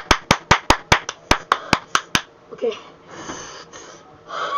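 A quick, even run of about ten sharp hand claps, roughly five a second, which stops a little over two seconds in, followed by fainter scattered sounds.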